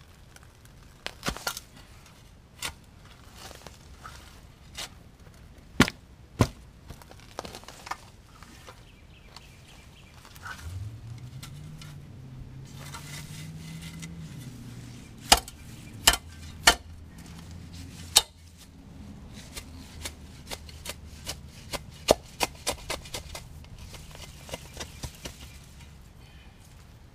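Shovel digging out a clump of daylilies: a scatter of sharp chops and scrapes as the blade is driven into the soil and cuts through the roots, the loudest strokes a little past the middle. A low hum comes in partway through, rising in pitch and then holding for several seconds.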